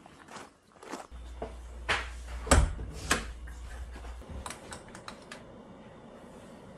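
A run of sharp clicks and knocks from a door being opened and shut and footsteps coming in, with a low rumble under them for a few seconds; the loudest knock comes about two and a half seconds in. A cluster of lighter clicks follows about a second later.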